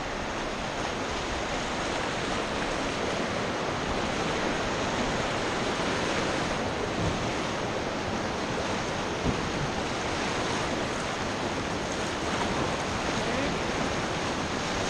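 Rushing river water of a whitewater rapid, a steady wash of noise, with wind buffeting the microphone. One short knock about nine seconds in.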